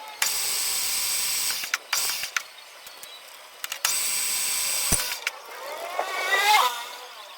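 A power tool running in two bursts, the first about a second and a half long and the second about a second, each with a high steady whine. Near the end comes a short rising squeal.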